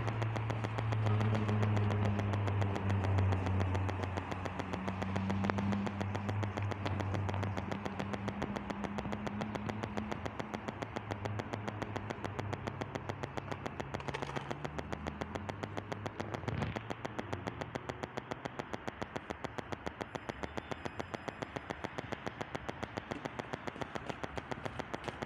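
A motor vehicle's engine running, a low steady hum that weakens after about ten seconds, over a steady hiss.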